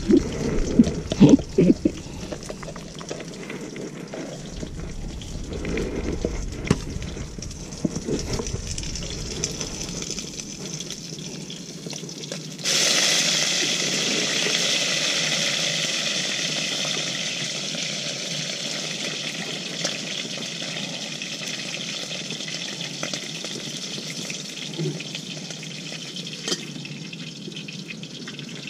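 Portable gas cassette stove's burner hissing steadily under a pot; the hiss starts suddenly a little under halfway in and slowly eases. Before it come scattered rustling and handling sounds.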